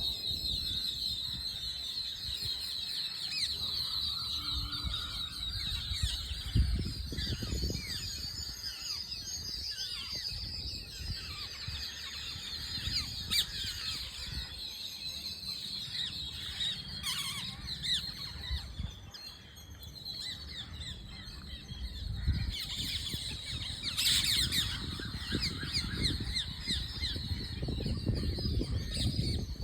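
A flock of parrots calling: many short, shrill, overlapping calls and chirps throughout, with bursts of low rumble about a quarter of the way in and again toward the end.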